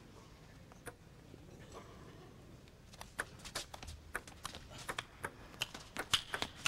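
Table tennis rally: the celluloid ball clicking sharply off paddles and table, about three hits a second, starting about three seconds in after a quiet lead-up.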